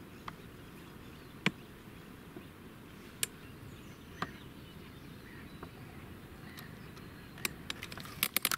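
Quiet outdoor ambience by still water: a steady low background noise broken by a few isolated sharp clicks, then a quick run of clicks near the end.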